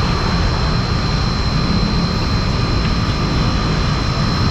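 Steady roar of passing street traffic, with a thin high steady tone running through it.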